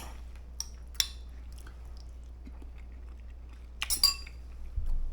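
Eating utensil clinking against a bowl: a couple of light clinks early, then a louder cluster of clinks about four seconds in.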